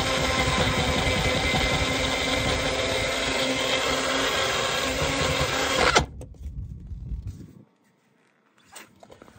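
Small bullet-style personal blender running at full speed, grinding roasted tomatoes, peppers and garlic into salsa. The motor cuts off suddenly about six seconds in, and a few faint clicks follow near the end as the cup is taken off the base.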